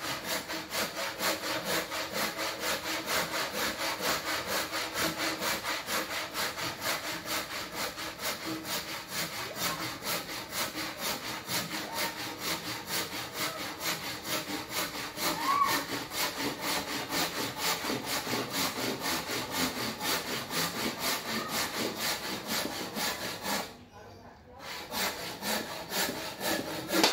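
Hand saw cutting through a square wooden beam, rasping back and forth in steady, rapid strokes, about three a second. The sawing pauses briefly near the end, then resumes for a few last strokes.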